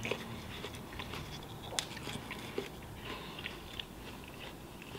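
A person chewing and biting into raw watermelon: quiet, irregular wet crunching and small mouth clicks, with one sharper click a little under two seconds in.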